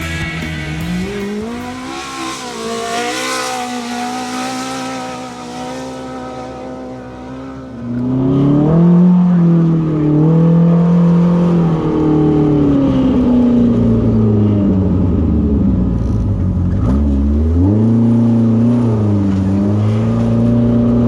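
Rock music fading out over the first several seconds. About eight seconds in, a racing UTV's engine comes in loudly, its pitch rising and falling as the driver gets on and off the throttle, with one deep drop and climb back up near the end.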